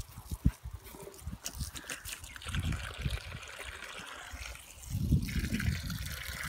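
Water trickling from a garden hose, with low rumbles, the loudest about five seconds in.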